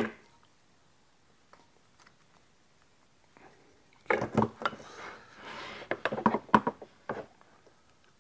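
After a few seconds of near silence, several clicks and knocks with a short scrape as a metal combination square is picked up, set down and slid against a cherry strip on a wooden bench top.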